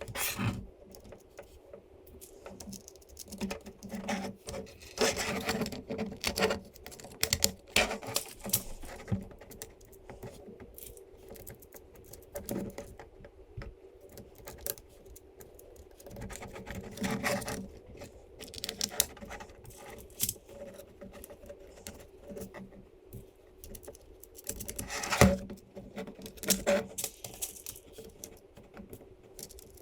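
Small parts being handled during assembly of a 3D-printed plastic engine model, with its metal screws, nuts and washers: irregular clicks, taps and light clatter, the loudest knock about 25 seconds in, over a faint steady hum.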